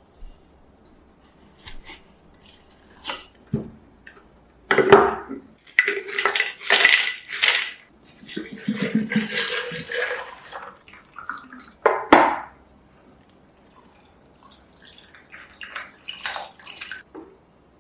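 Drink-making sounds with a glass pitcher: a series of clinks and knocks against glass, then liquid poured in for a couple of seconds. Near the end there are light clinks as tea is poured into a drinking glass.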